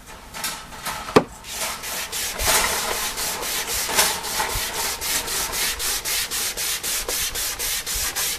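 Hand sanding of a painted wooden coffee-table top with sandpaper, rubbed back and forth in a quick even rhythm of about four strokes a second. There is a sharp knock about a second in.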